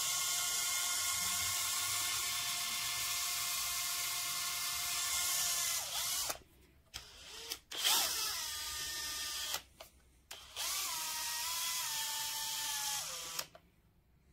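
Cordless drill motor running with no load: a steady whine for about six seconds, then two shorter runs with clicks between them, the last winding down with a falling pitch.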